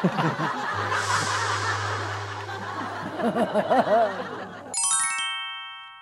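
People laughing and chuckling over a steady low music drone, then, near the end, a bright shimmering chime sound effect rings and fades away.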